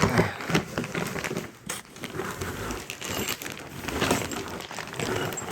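Packaging crinkling and rustling, with a few sharp clicks, as a sway bar is handled and brought out of its box.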